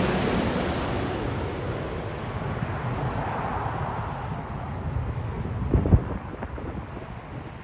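Landing jet airliner's engine noise fading away after it passes low overhead, a broad rush of sound dying down steadily. Wind buffets the microphone with a few low thumps about six seconds in.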